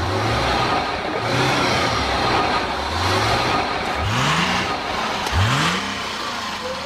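A vehicle engine running with a low, repeating throb, then revving up twice with a rising pitch about four and five and a half seconds in.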